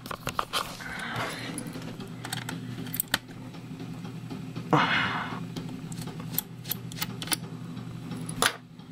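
Irregular small clicks and metallic ticks of a screwdriver taking out the tiny screws that hold the optical drive in a 2008 aluminum MacBook Pro, over a low steady hum. A short hiss comes about five seconds in.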